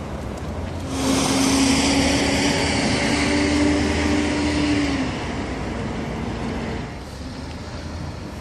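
A motor vehicle driving past: a steady engine whine with road hiss swells up about a second in, drops in pitch as it goes by, then fades.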